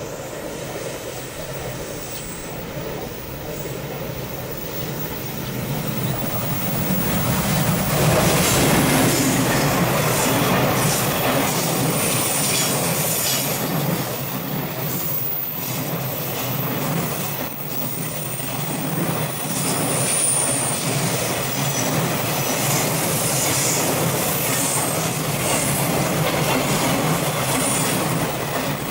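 A train passing on the line: steel wheels running on the rails with some high-pitched wheel squeal, the noise building about six seconds in and staying loud.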